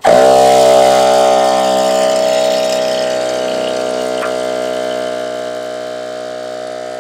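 ARB 12-volt electric air compressor switching on suddenly and running steadily to air up the tires. Its level eases off a little as it runs.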